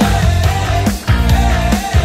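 Background rock music with a steady beat, a heavy bass and a melody line.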